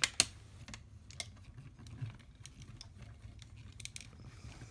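Plastic clicks and knocks from a large plastic Transformers action figure being handled and its parts moved and clipped into place during transformation. The sharpest click comes just after the start, another about a second in, then a few soft ones.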